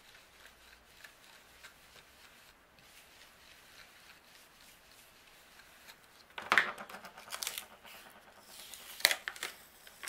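Mini blending brush rubbing ink softly through a stencil onto card. About six seconds in come louder rustling and scraping, with a sharp click or two, as the stencil and paper masking are lifted off the panel.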